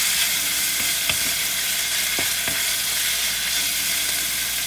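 Diced chicken sizzling steadily in hot oil in a metal wok, stirred with a wooden spatula that scrapes and taps the pan a few times.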